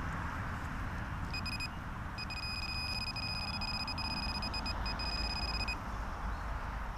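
High-pitched electronic tone from a metal detector or pinpointer sounding over a target. It sounds briefly about a second in, then holds for about three and a half seconds with a short break near its end, over a low rumble.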